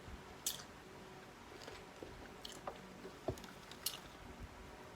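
A person chewing and biting into chicken wings close to the microphone: faint, scattered mouth smacks and clicks.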